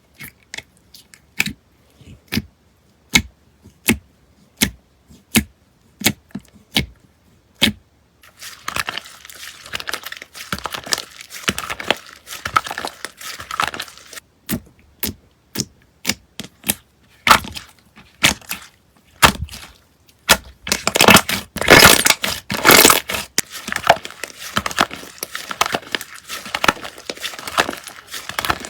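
Slime being pressed and worked by hand: sharp pops about every three-quarters of a second at first, then from about eight seconds in a dense run of crackling and crunching, loudest a little past the twenty-second mark.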